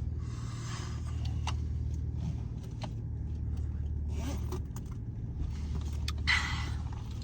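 Steady low hum of a car running, with a few brief rustles and soft clicks.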